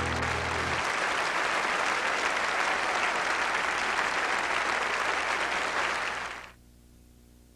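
An audience applauding, over the last low notes of music that die away about a second in. The applause cuts off suddenly near the end.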